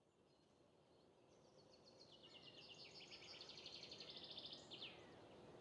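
Faint birdsong fading in over soft outdoor background noise: rapid trilled phrases, two overlapping at different pitches, starting about a second in and ending with a quick downward slur near the end.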